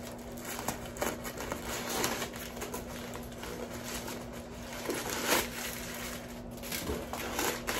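Tissue-paper stuffing rustling and crinkling as it is handled and pulled out of a small leather bag, with louder rustles about two and five seconds in. A faint steady hum lies underneath.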